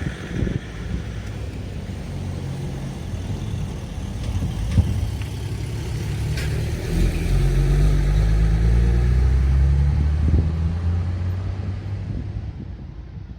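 Road traffic: a motor vehicle's engine running and then accelerating, its pitch climbing and loudest past the halfway mark before fading away.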